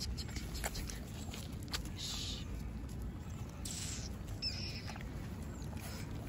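Puppies suckling at their mother dog's teats: soft scattered suckling clicks and rustles with a brief high squeak about four and a half seconds in.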